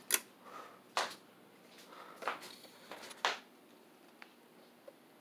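Four separate clicks and knocks over about three seconds, then two faint ticks, as a ceiling fan on a testing rig is switched on at low speed; no steady motor hum stands out.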